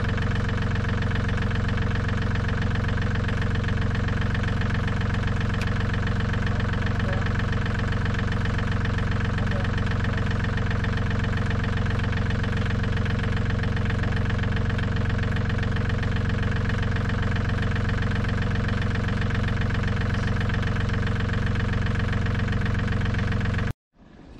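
John Deere compact tractor's diesel engine idling steadily, until it cuts off suddenly near the end.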